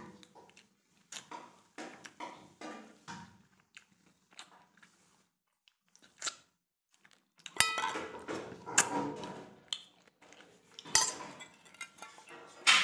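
A man eating by hand: chewing and lip-smacking, then his fingers knock and scrape the stainless-steel bowl, several of the knocks ringing briefly, loudest in the second half.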